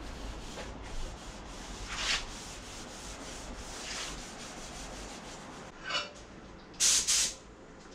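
A cloth wiping over the dried base coat on a car door panel in a few long rubbing strokes, the wipe-down before the clear coat goes on. Near the end come two short, louder hissing noises.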